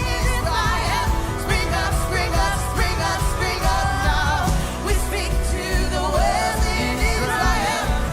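Worship music: a voice singing a wavering melody over a band with steady low bass and regular drum hits.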